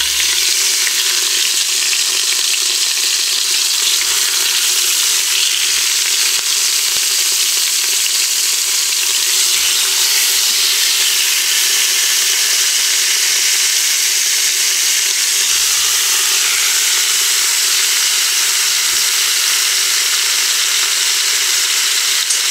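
Partially frozen chicken thighs sizzling steadily and loudly as they brown in hot oil in an Instant Pot's stainless steel inner pot on the sauté setting.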